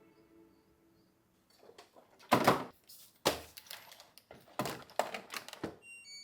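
A handful of sharp clacks and knocks, as of hard objects being handled and set down, the loudest about two and a half seconds in and a cluster of them a second or so later.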